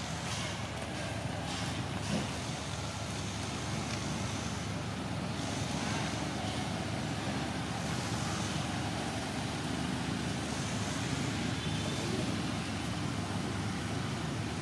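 Steady outdoor background noise: a low rumble under an even hiss, with no distinct sound standing out.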